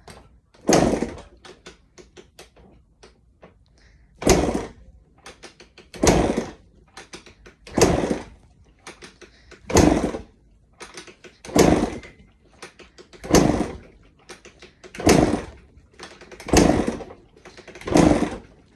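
A two-stroke Honda CR motocross bike being kick-started about ten times in a row, each kick a loud stroke of the engine turning over, roughly every two seconds. The engine never catches, even with the choke on.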